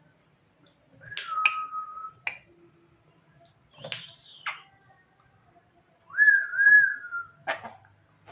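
Javan myna (jalak kebo) calling: whistled notes mixed with sharp clicks. There is a held whistle about a second in, a falling note around the middle, and a louder whistle near the end.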